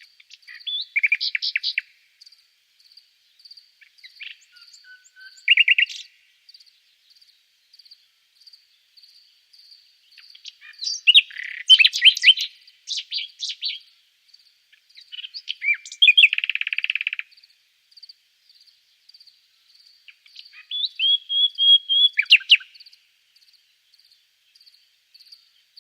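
Common nightingale singing in separate phrases of quick varied notes and trills, with pauses of a few seconds between them; one phrase about two-thirds of the way through is a fast rattling trill. A cricket chirps steadily in the background, about two chirps a second.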